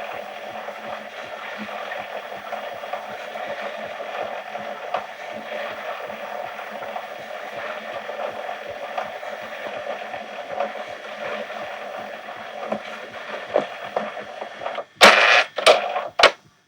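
Old VHS camcorder running its tape transport while recording onto a video cassette: a steady mechanical whir with a fast, regular ticking. Near the end come three or four loud mechanical clunks, then it cuts off.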